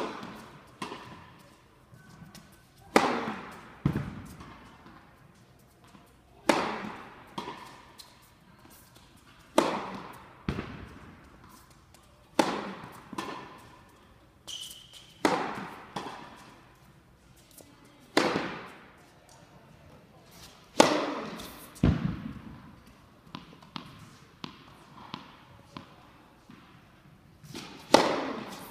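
Tennis serves struck one after another. About every three seconds comes the sharp crack of racket strings on the ball, followed about a second later by the ball's duller thud, and both echo around a large indoor hall. Lighter taps of the ball being bounced come between some serves.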